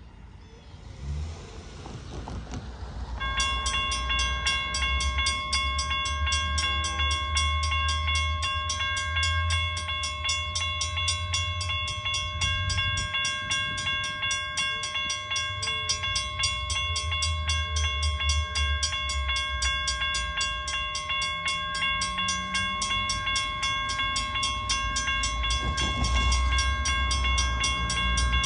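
Railroad crossing bell switching on about three seconds in and ringing with a fast, even beat, over the low rumble of an approaching diesel train that grows slightly louder near the end.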